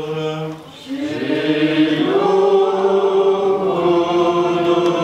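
Church choir chanting a short Orthodox liturgical response in held, sustained notes. It follows a single held sung note that breaks off about half a second in.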